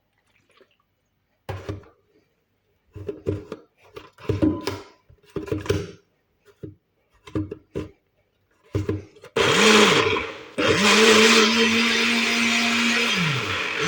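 A series of short separate bursts, then a countertop blender switching on about nine seconds in, running for about a second and stopping, then starting again and running steadily as it blends fruit with water.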